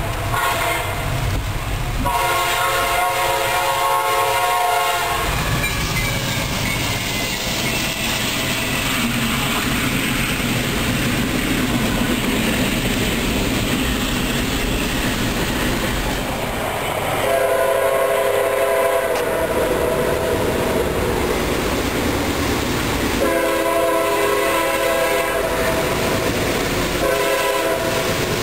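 Diesel freight train horn sounding several long, multi-tone blasts. Between the blasts a double-stack container freight train rolls past with a steady rumble and clattering wheels on the rail joints.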